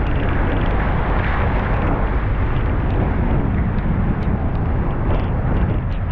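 Heavy rain and tyres on a wet street: a steady, loud hiss with a low rumble underneath and faint scattered ticks.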